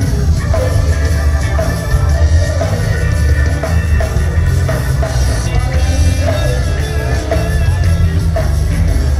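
Rock music with guitar and drums and a heavy, steady bass beat.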